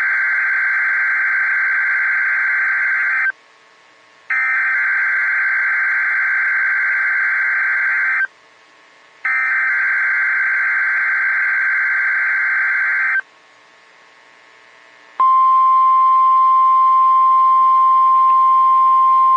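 NOAA Weather Radio EAS broadcast: three long bursts of SAME digital header data, a harsh warbling screech, each about three seconds long and about a second apart. About 15 seconds in, the steady 1050 Hz weather-radio warning alarm tone begins and holds.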